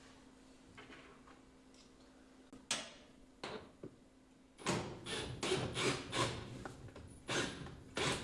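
Handling noise of wood and tools during assembly: a few isolated knocks, then from about halfway a quick run of clattering knocks and scrapes.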